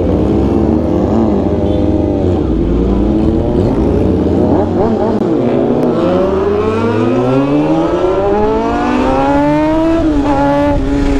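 Motorcycle engines accelerating on the road, their pitch climbing steadily for several seconds with more than one engine heard at once, then dropping about ten seconds in as the revs fall.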